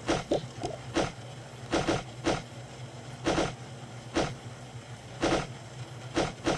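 Objects being handled and set down: a string of short knocks at uneven spacing, roughly one a second, some in quick pairs, over a steady low hum.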